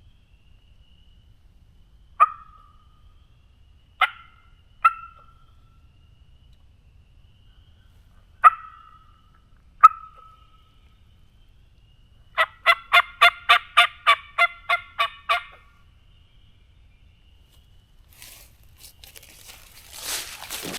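Turkey clucks: five short, sharp single notes a second or more apart, then a run of about a dozen yelps at roughly four a second. Near the end, footsteps rustle through dry leaves.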